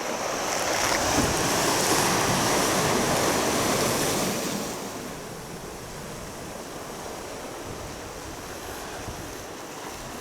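Sea waves washing in on the shore. The surf swells louder over the first four seconds or so, then falls back to a lower steady wash.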